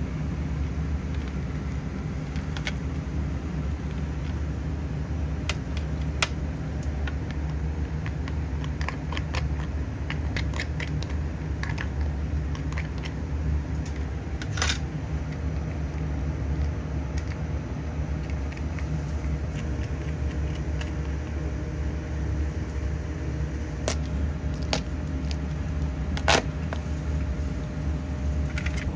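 Steady low hum of kitchen machinery, with scattered light clicks and clinks of utensils. Sharper knocks come about 15 s in and again near 24 and 26 s.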